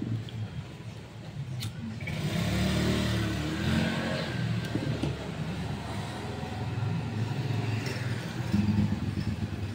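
A motor vehicle engine running, growing louder about two seconds in and then holding steady.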